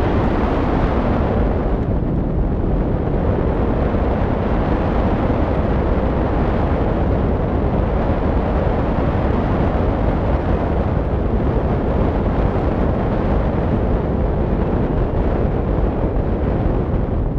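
Loud, steady wind noise from air rushing over a camera microphone mounted on a hang glider's wing in flight.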